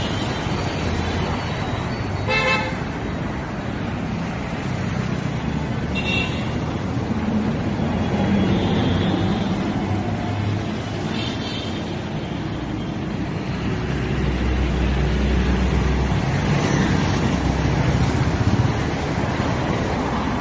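Busy city road traffic: motor scooters and cars passing steadily, with a short horn toot about two seconds in and a couple of fainter honks later. The traffic grows louder and deeper in the second half.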